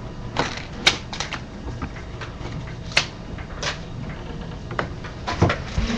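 Irregular sharp clicks and taps, about a dozen scattered unevenly, a few louder than the rest, over a low steady hum.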